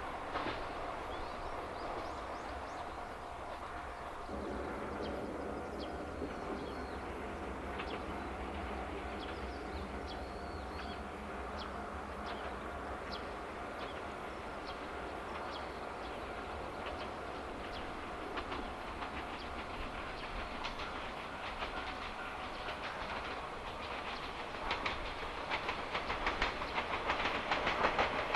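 Yoro Railway electric train running along the track: a steady rumble with faint clicking from the wheels, the clicking growing denser and louder near the end.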